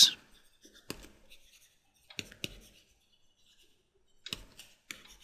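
Faint clicks and scratches of a stylus writing on a tablet, in a few short clusters about one, two and a half, and four and a half seconds in.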